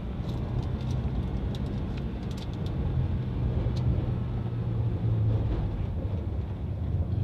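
A car's engine and tyres heard from inside the cabin while driving: a steady low hum with road noise, and a few scattered sharp ticks in the first four seconds.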